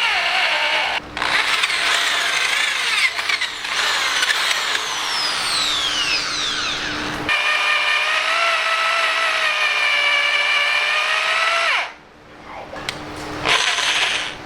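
Old Ryobi corded electric drill boring through steel, its motor whining under heavy load with the pitch sagging and recovering as the bit bites. It stops about twelve seconds in, then runs again briefly near the end.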